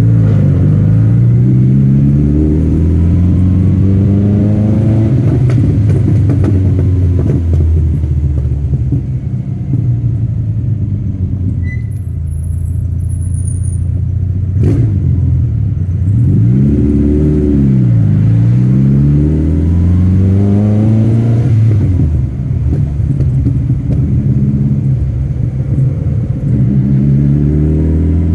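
TVR Cerbera 4.5's V8 engine running hard, its revs climbing and dropping several times as it accelerates through the gears. About two-thirds through, the revs dip and climb again.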